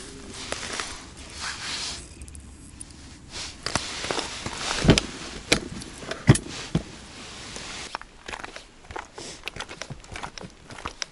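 Clothing rustle and knocks as ice-fishing gear is handled by the hole, with two louder thumps midway. Near the end come quick crunching footsteps on granular, thawing ice.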